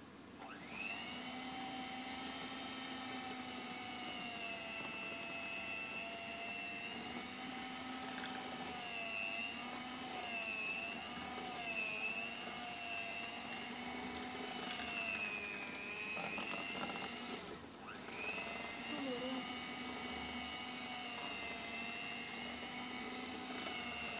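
Electric hand mixer running with its beaters in cake batter: a steady motor whine that rises as it starts about half a second in, then wavers in pitch as the load changes. It cuts out for a moment about 18 seconds in and starts again, rising back up.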